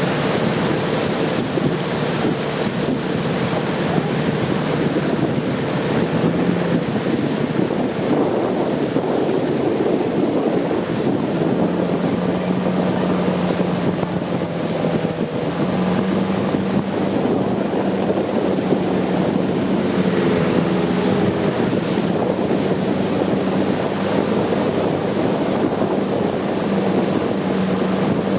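Long-tail boat engine running steadily under way, with water rushing past the hull and wind buffeting the microphone.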